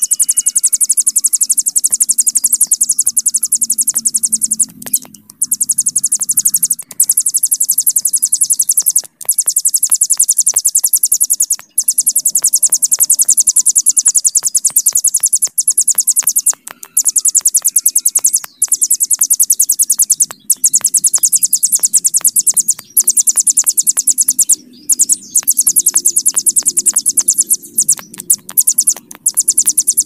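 Ciblek gunung (a mountain prinia) singing its long 'bren' song: a very rapid, high-pitched buzzing trill that runs on almost without a break, stopping only for a moment every few seconds.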